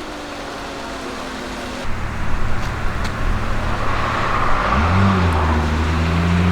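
Porsche 997 Turbo's twin-turbo flat-six, fitted with a SOUL Competition exhaust. A rough low exhaust rumble comes in about two seconds in, and from about five seconds in the engine note climbs steadily as the car accelerates.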